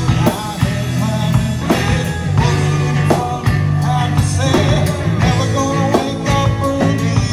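A live blues-rock band playing a song through a PA: drum kit beating steadily under acoustic and electric guitars, with strong low notes.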